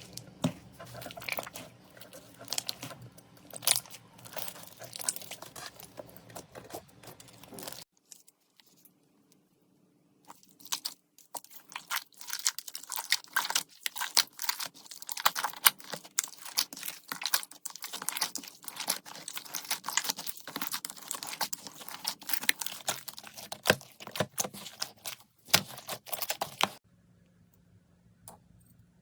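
Slime being squeezed and pressed by hands, making dense crackling, crunchy clicks. It pauses briefly about eight seconds in, then comes back busier and louder before fading near the end.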